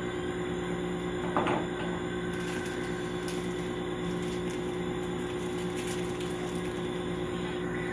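Steady machine hum with a brief knock about a second and a half in.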